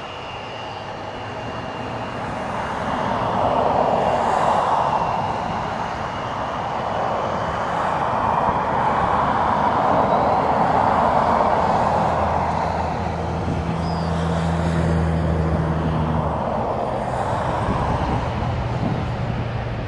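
Embraer regional jet's twin turbofan engines at high power, a loud rushing roar as the jet rolls away down the runway, swelling about three seconds in and staying loud. A thin high whine fades early on, and a low steady hum joins for a few seconds past the middle.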